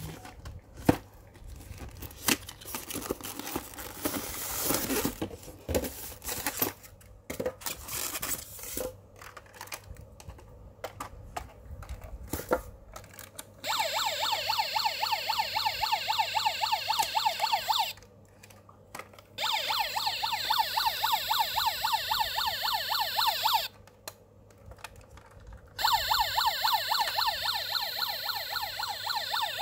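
Cardboard box and plastic packaging rustling and crinkling as a diecast model is unboxed, then the toy's electronic siren plays a fast warbling wail in three runs separated by short pauses. The siren comes from the sound-and-light module of a 1:24 Iveco police van model.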